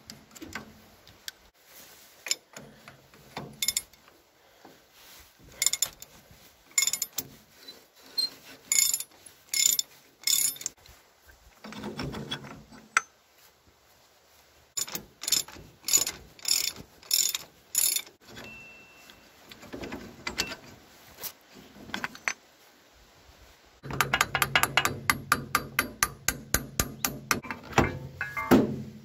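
Hand socket ratchet clicking in short runs as bolts on the tractor's rear linkage are turned. Near the end comes a long, fast run of clicks.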